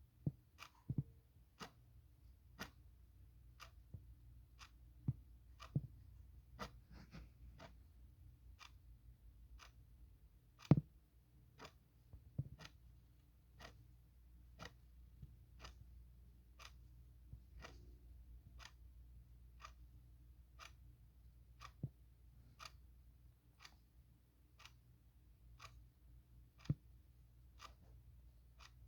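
Clock ticking steadily, a little under two ticks a second. A few louder knocks fall irregularly among the ticks, the loudest about eleven seconds in.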